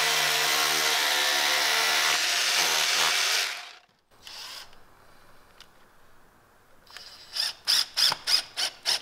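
Corded rotary hammer drilling a 1/8-inch hole into concrete. It runs steadily for about three and a half seconds and then stops. A few seconds later a cordless impact driver starts driving a Tapcon concrete screw into the hole, hammering in quick pulses about three a second that grow louder.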